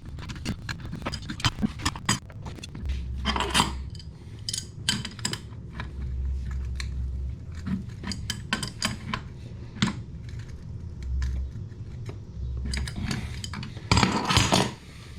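Metal clinks, taps and scrapes from a wrench and toilet supply-line fittings being handled and worked, with a louder clatter near the end.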